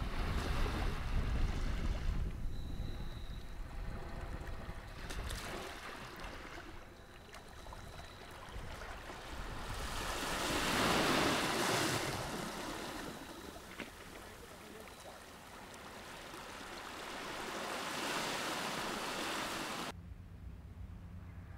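Wind on the microphone and sea water washing, rising and falling in swells, loudest about halfway through. Near the end it cuts off suddenly to a quieter steady hum.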